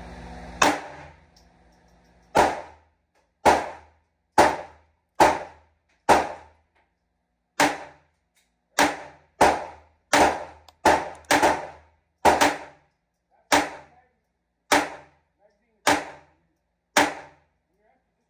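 A GSG 1911-22 .22 LR semi-automatic pistol firing about seventeen single shots in a string. The shots come roughly a second apart, quicken to about two a second in the middle, then slow again, each a sharp crack with a brief ring-off.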